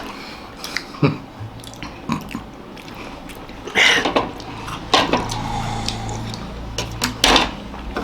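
People eating and drinking: biting and chewing biscuits and sipping hot coffee, with scattered short clicks and a few louder brief mouth noises.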